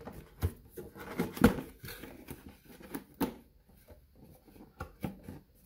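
Hands handling a cardboard box to get the movie case out: scattered rustles, scrapes and knocks, the loudest knock about a second and a half in.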